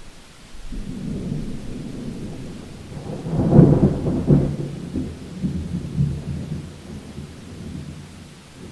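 Thunderstorm: a low thunder rumble builds about a second in, swells to its loudest crash around the middle and rolls away slowly, over steady rain.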